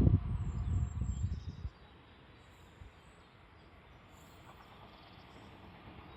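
A low rumble stops abruptly about a second and a half in, leaving quiet outdoor background with faint bird calls.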